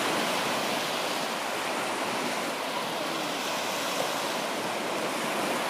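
Small Baltic Sea waves washing onto the beach: a steady, even wash of surf.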